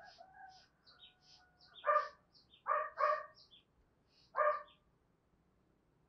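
Small birds chirping in quick, short high notes, with four short, louder animal calls about two, three and four and a half seconds in, the middle two close together.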